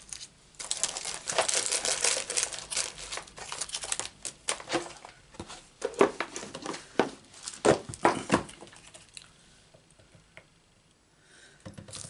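Clear plastic packaging crinkling as it is handled, dense rustling for the first few seconds, then scattered sharp crackles and taps that thin out to near quiet about ten seconds in.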